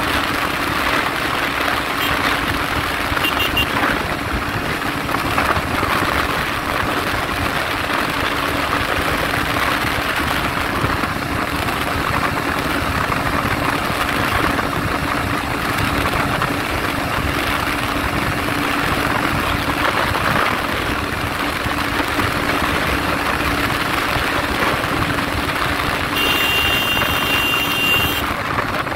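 Bajaj Pulsar NS125's 125 cc single-cylinder engine running hard at a steady high pitch, held wide open during a top-speed run, under heavy wind rush on the microphone. A short high steady tone sounds for about two seconds near the end.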